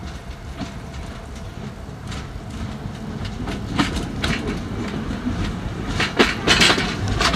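Tramway du Mont Blanc electric rack-railway train approaching along the track. A low rumble carries sharp clicks and clatter from the wheels on the rails, getting steadily louder as it nears and loudest near the end.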